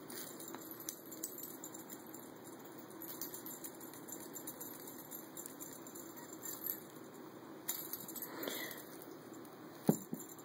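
A cat's metal collar tag jingling faintly and light taps as the cat plays, over a steady low hum; one sharp tap near the end.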